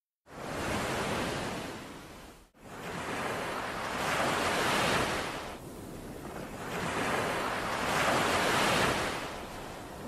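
Sea waves washing on a rocky shore, the hiss swelling and fading in slow surges about every four seconds. The sound comes up out of silence just after the start and drops out for a moment about two and a half seconds in.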